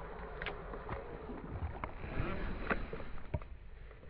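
Small rowing boat on the water: scattered light knocks and clicks over a low steady background noise.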